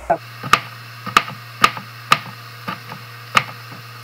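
Knife chopping a jalapeño on a cutting board: sharp knocks of the blade striking the board, about two a second.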